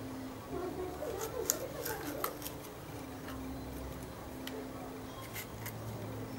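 Sharp clicks and crackles of a thumb prying soft ice-apple kernels out of a palmyra palm fruit's fibrous flesh, clustered in the first half with another click near the end, over faint background voices and a low hum.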